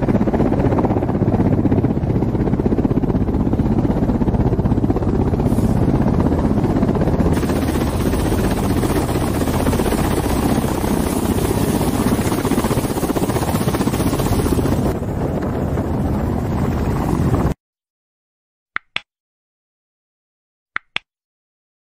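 Kamov Ka-52 attack helicopters' coaxial rotors and turbine engines running close by at takeoff and hover, a loud steady noise. It cuts off suddenly about three-quarters of the way through and is followed by two short clicks about two seconds apart.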